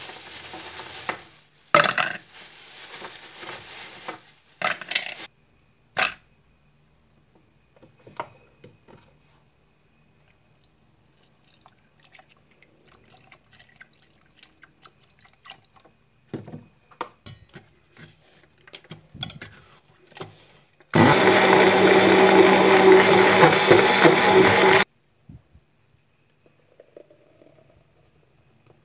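An electric blender runs steadily for about four seconds, blending banana, strawberries and milk in a glass jug into a smoothie; it starts and stops abruptly. Before it come a few short rustles and clatters as the ingredients go into the jug.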